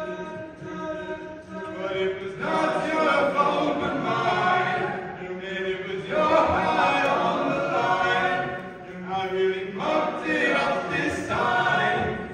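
All-male a cappella group singing in close harmony, many voices holding chords together in phrases that swell and fall back.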